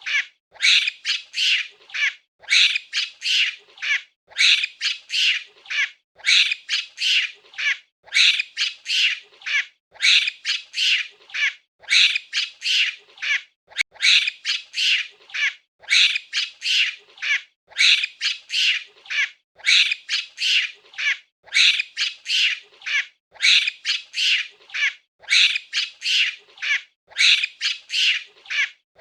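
Monkey calling with shrill, high-pitched squawking screeches in quick runs of four or five calls. The runs repeat evenly about every two seconds.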